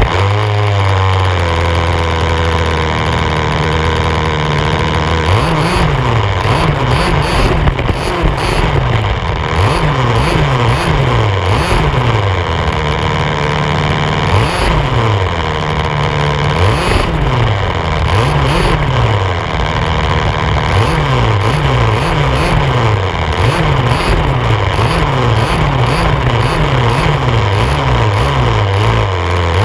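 HPI Baja 5B's small two-stroke engine, a 1/5-scale gas RC buggy, idling steadily for about five seconds, then revving up and down over and over as it is driven, with rising and falling pitch sweeps about once a second.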